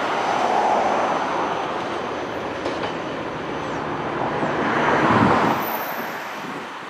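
Freight cars rolling away on the rails: a steady noise of steel wheels on track with some clatter. It swells twice, then fades near the end as the rear of the train recedes.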